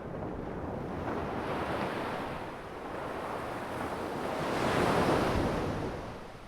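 Sea waves breaking and washing in, in two swells of surf: the first builds about a second in, the second and louder one peaks near the end and then fades.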